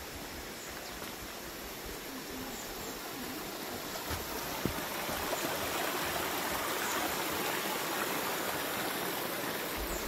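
Small shallow stream trickling and splashing over loose stones, a steady rush of water that grows louder about halfway through.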